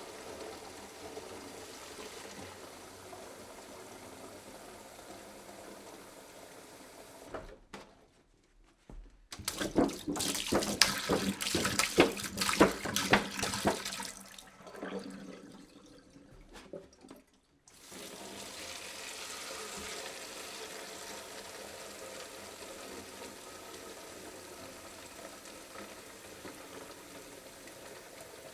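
Water pouring from a jug: a steady pouring stream, cut off about seven seconds in, then a louder, uneven splashing pour from about nine to fourteen seconds that tails off in broken spurts, and a steady stream again from about eighteen seconds on.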